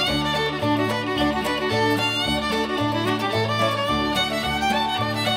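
Instrumental background music led by a fiddle, over a bass line that steps from note to note.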